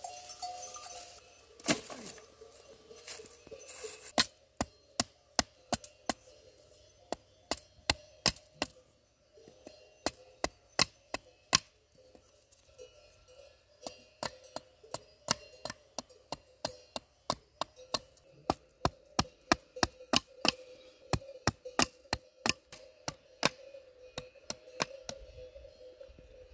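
Small hatchet chopping a thin wooden branch: sharp, irregular strikes of the blade into the wood, two or three a second, starting about four seconds in. A faint steady tone runs underneath.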